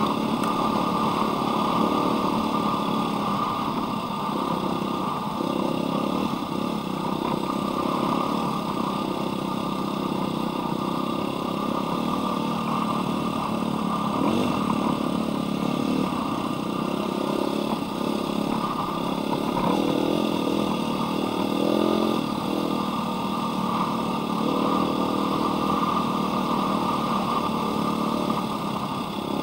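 Dirt bike engine running steadily while ridden, heard close up from on the bike, its pitch rising and falling several times with throttle changes.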